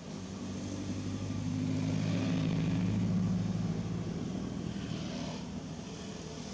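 A passing motor vehicle's engine hum, growing louder over the first few seconds and fading away after about four seconds.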